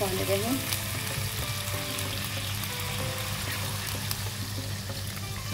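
Chicken drumsticks sizzling in hot oil in a wok as water is poured in from a glass, a steady hiss of frying and splashing. Soft background music plays under it.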